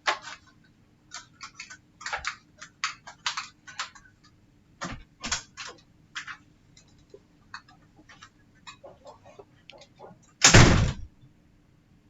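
Irregular small clicks and taps as laptop parts and tools are handled during touchpad fitting, then one loud thump near the end.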